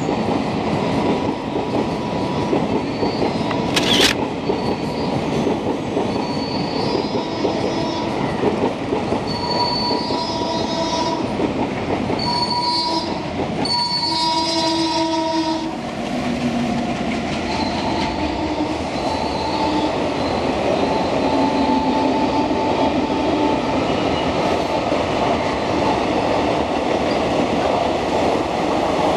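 Indian Railways passenger coaches running past on the track: a steady, loud rumble of wheels on rails, with short high-pitched tones coming and going, most crowded about halfway through. A single sharp click about four seconds in.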